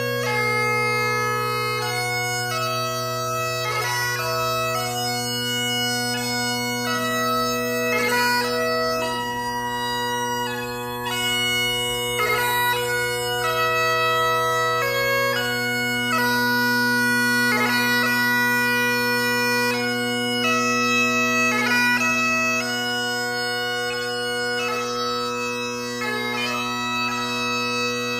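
Great Highland bagpipe played solo: the steady drones hold one low note while the chanter plays a melody, with quick grace notes flicking between the melody notes.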